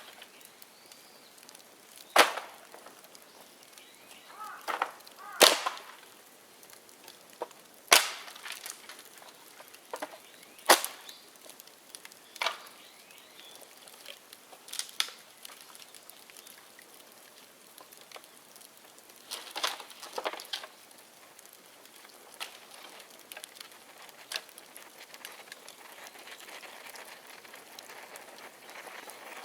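Bonfire of dead bamboo crackling, with sharp loud pops and cracks every few seconds, some coming in quick clusters: bamboo culms bursting in the heat.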